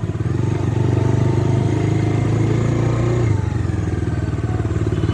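Bajaj Dominar 250's single-cylinder engine running steadily under way; its note drops slightly about three seconds in.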